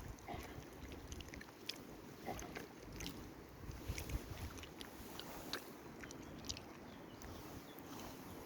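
Quiet outdoor background: a faint, uneven low rumble with scattered small clicks and ticks.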